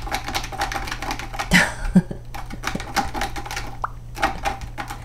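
A kitten clawing at the sisal rope of a cat-tower post: a fast run of scratchy clicks and scrapes, louder about one and a half seconds in.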